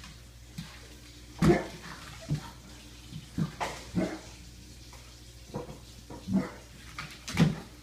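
A Weimaraner and a pug play-fighting: a string of short, sudden scuffling and snorting dog noises, about eight in all, the loudest about a second and a half in.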